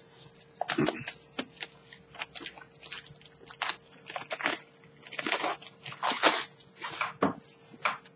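Clear plastic shrink wrap being torn and peeled off a cardboard product box: irregular crinkling and crackling that stops just before the end.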